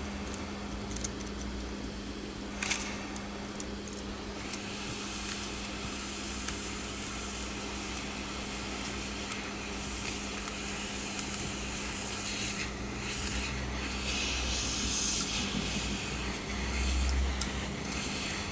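Hot-air heat gun blowing steadily with a low hum, its hiss swelling partway through, with a few sharp clicks as broken back glass is pried and pulled off a phone.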